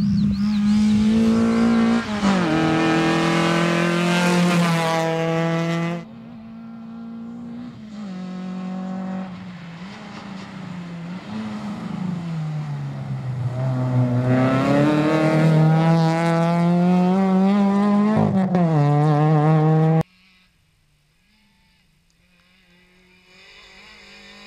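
Seat Ibiza rally car engine revving hard on a gravel stage, in several short cuts. The pitch climbs through the gears and drops at each shift, falls as the car slows, then rises again as it pulls away. Near the end the car is faint and distant, getting louder as it approaches.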